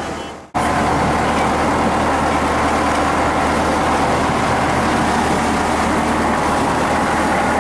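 Small passenger boat's engine running steadily under way, with water rushing along the hull. The sound fades down and cuts back in abruptly about half a second in.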